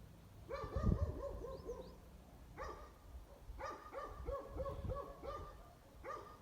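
A dog barking in quick runs of short, high yapping barks, several a second: a long run about half a second in, another in the middle, and a few single barks between and near the end.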